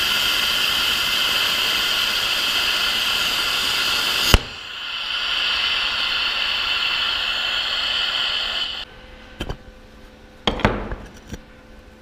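Electric welding arc from a Sherman DigiMIG 200 welder, burning with a steady hiss. A little past four seconds in it breaks off with a sharp click, starts again moments later and stops near nine seconds. A few knocks follow.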